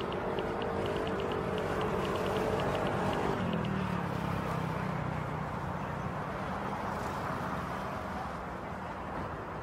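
Outdoor background noise with a steady hum, like traffic or a motor, that shifts to a lower hum about three and a half seconds in. A fast, light ticking runs through the first three and a half seconds.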